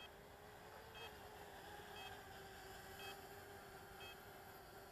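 Near silence: a faint short electronic beep about once a second, over a faint steady hum from a distant quadcopter's motors.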